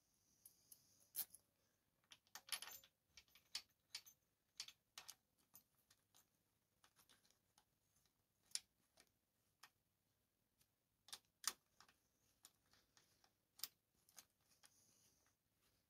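Faint, irregular small metallic clicks and ticks as a hex key turns the axle pinch bolts into a motorcycle's fork legs, with a few sharper clinks among them.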